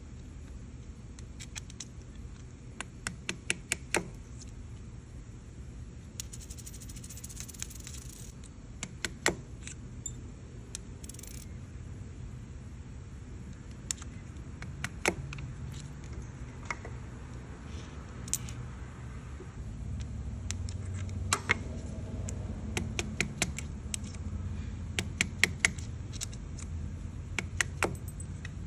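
Scattered sharp metallic clinks and taps of small metal parts and tools being handled on a workbench, over a steady low machine hum that grows louder about twenty seconds in. There is a brief hiss about six seconds in.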